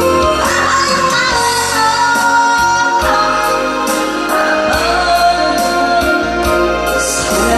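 A woman singing a song over musical accompaniment with a steady beat, holding and sliding between long notes.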